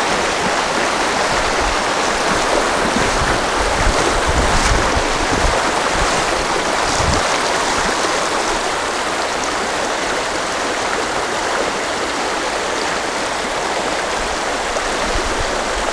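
West Gallatin River rushing over a shallow, rocky riffle: a steady rush of moving water, with some low irregular bumps in the first half.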